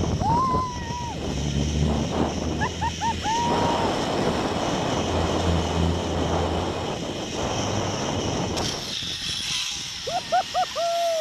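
Wind rushing past and a zip-line trolley running down the steel cable, with a rider's high whooping cries about half a second in and again around three seconds. About three-quarters through, the low rush gives way to a higher hiss as the ride slows into the landing, and a run of short cries follows near the end.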